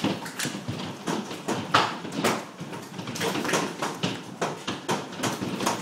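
Baseball-size hailstones hitting the roof: an irregular clatter of hard knocks, several a second.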